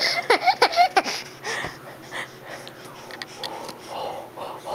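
Toddler's breathy, wheezing laughter: a run of quick bursts in the first second, trailing off into softer breaths.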